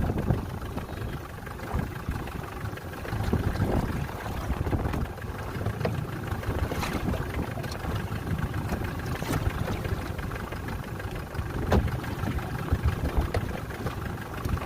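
Small fishing boat's outboard motor idling under wind and waves, with a few sharp knocks and clunks as gear is handled aboard.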